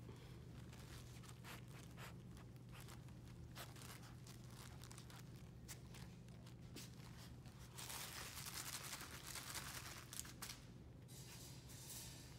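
Faint rustling and scuffling of red goldendoodle puppies moving about on a blanket, with scattered small clicks and a louder rustle about eight seconds in that lasts about two seconds, over a steady low hum.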